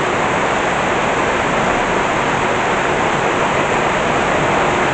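Very heavy tropical rain pouring down in a steady, dense hiss.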